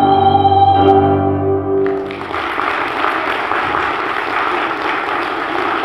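A female opera singer holds the aria's final note with grand piano accompaniment; the note ends about two seconds in. Audience applause follows and continues steadily.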